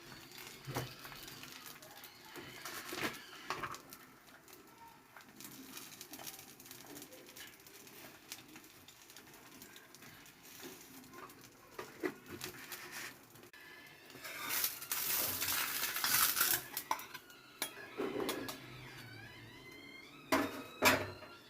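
Kitchen clatter: utensils and dishes knocking and clinking against each other at scattered moments, with a louder stretch of hiss about fifteen seconds in.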